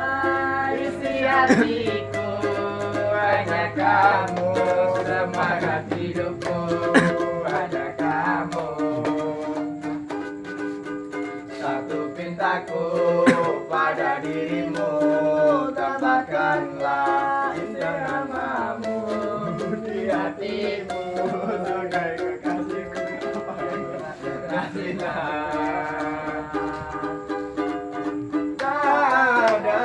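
Young men singing a pop song together, with a strummed string instrument keeping time.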